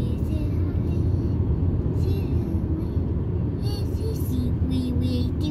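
Steady low road and engine noise inside a moving car's cabin.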